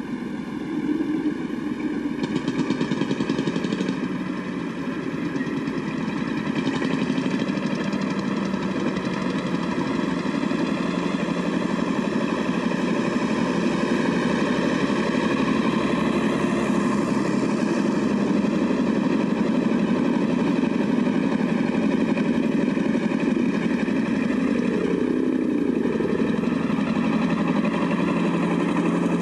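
Several vintage tractor engines running as a procession of tractors drives out onto the road towards the listener, growing a little louder as they come closer.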